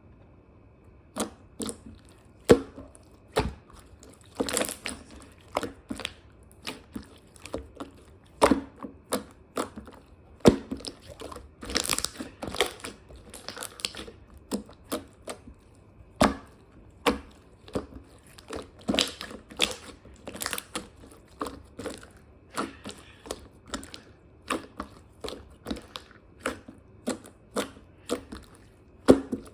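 Irregular sharp crunches and crackles, close to the microphone, coming about once or twice a second.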